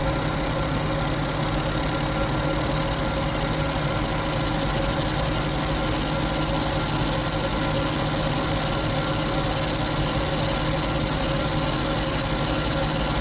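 A motor running at a steady speed with a constant hum and whine.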